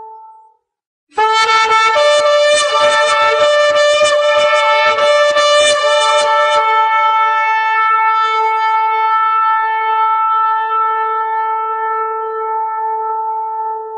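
Ram's-horn shofar blown in a run of quick broken blasts, about two a second, then one long steady note held for about seven seconds.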